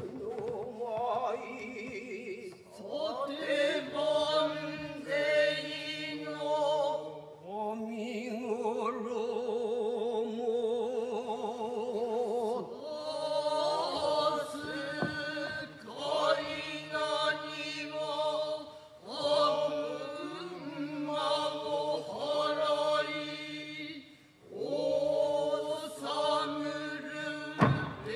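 A Kanze-school Noh chorus (jiutai) chanting utai in unison, in long, wavering phrases with short pauses for breath. A few sharp thumps sound near the end.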